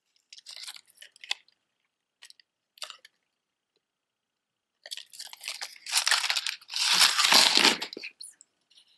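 Crinkling and rustling of handled plastic packaging: a few short crackles, then about three seconds of louder, continuous crinkling near the end.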